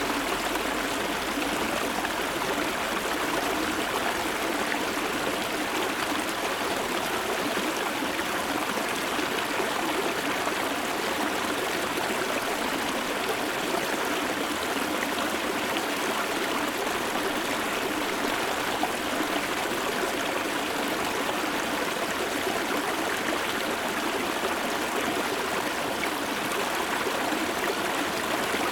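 Shallow river stream flowing over rocks, heard close up: a steady, even burble and trickle of running water.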